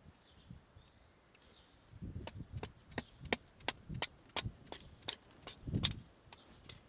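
Batoning firewood: a hammer strikes the spine of a nata blade driven into a split of wood, about a dozen sharp knocks at roughly three a second, beginning about two seconds in.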